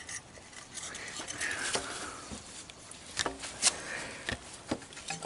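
Metal exhaust expansion chamber being handled and fitted against a dirt bike's frame: irregular light metal knocks, clicks and scrapes, with a few sharper taps in the second half.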